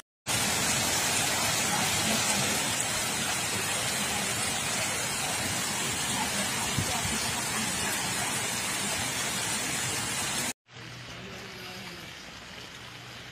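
Heavy rain and rushing floodwater, a loud steady hiss. About ten seconds in it cuts off abruptly to a much quieter wash of water.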